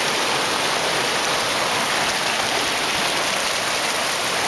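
Swift, knee-deep stream water rushing over rocks: a steady, unbroken hiss of rain-swollen flow.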